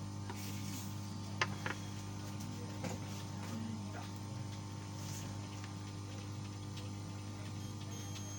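Steady low electrical hum from bench equipment, with a few faint clicks of tools on the circuit board. A thin, high, steady tone starts near the end.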